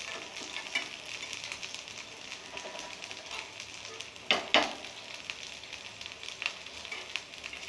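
Bamboo-shoot and rice-batter fritters sizzling and crackling in mustard oil on a nonstick tawa, with fine popping throughout. Two short sharp clacks of the spatula against the pan come about halfway through.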